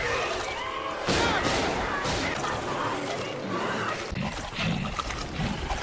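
Film action soundtrack: dense crashing and rumbling creature effects mixed with music, with a woman's voice crying out.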